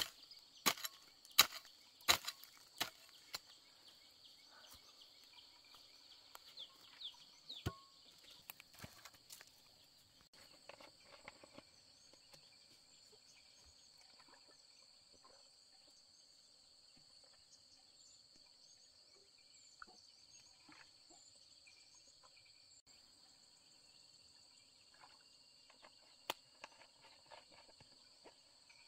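A hoe chopping into dry soil, about five sharp strokes in the first three seconds, roughly one every 0.7 s, then stopping. A steady, high insect chorus runs underneath throughout.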